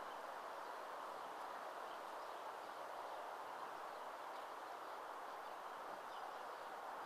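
Faint, steady rushing sound of a distant steam locomotive working toward the microphone, with no distinct exhaust beats, and birds chirping now and then.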